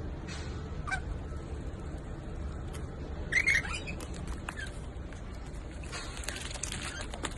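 A pet parrot gives one short, loud squawk about three and a half seconds in, over a steady low hum, with scattered faint clicks.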